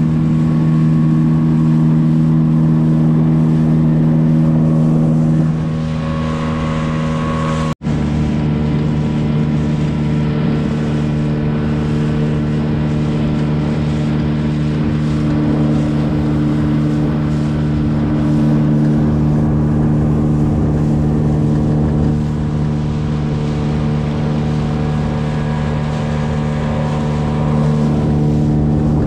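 Gladiator 9.9 hp outboard motor running steadily with the boat under way. The note drops slightly about five seconds in, then cuts out for an instant near eight seconds before carrying on.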